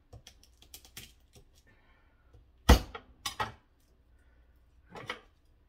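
Light clicks, then a sharp knock nearly three seconds in, a second about half a second later and another near the end: a garlic press being handled as a peeled garlic clove is loaded into it.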